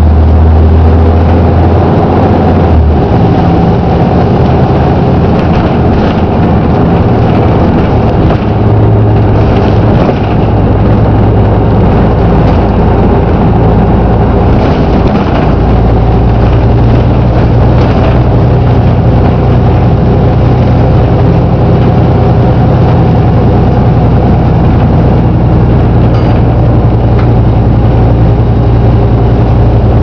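Volvo B7RLE bus engine and driveline running, heard from inside the passenger saloon while under way. The low engine note holds steady, then steps to a new pitch a few times as the gearbox changes gear, the gear changes the uploader calls odd sounding.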